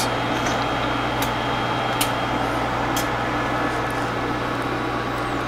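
Steady electrical hum and fan whir from running bench test equipment, with a few light clicks about a second apart as controls on the audio analyzer are worked.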